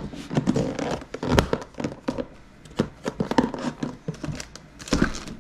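Kitchen handling noises: scattered light clicks and knocks with some rustling, and two dull thumps, about a second in and near the end, as a food container is put away in the fridge.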